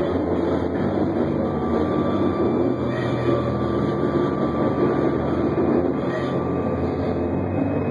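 Improvised live band playing a dense, droning passage through amplifiers: electric bass holding steady low notes under a noisy, distorted wash, with a thin high tone held for several seconds in the middle.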